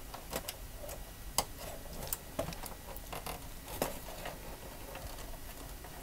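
Scattered small plastic clicks and rustling of wiring as the 6-pin plug of a 6-pin-to-SATA power cable is worked into the 6-pin power header on a desktop PC motherboard until its tab latches.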